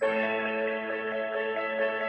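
A Samsung Galaxy S24 Ultra ringtone: a soft, ambient melody of sustained, layered notes. It begins right at the start, as a brighter plucked tone cuts off.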